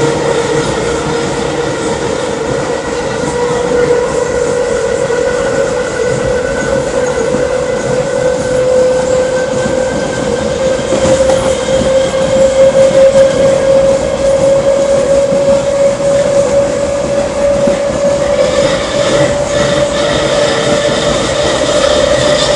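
CPTM electric commuter train 4417 running, its traction equipment giving a loud, steady whine that rises slowly in pitch as the train gathers speed, over continuous rail and wheel noise.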